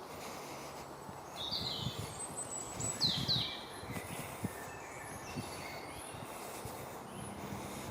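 Woodland birds calling and singing, loudest two quick falling calls about three seconds in, over a steady low background hiss with a few soft low thuds.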